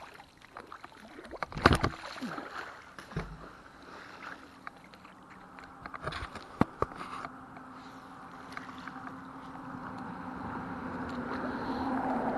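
A heavy fishing magnet lands in the water with a splash about a second and a half in, and a sharp knock follows a few seconds later. Then traffic on the highway overpass above comes in as a steady hum that grows louder toward the end.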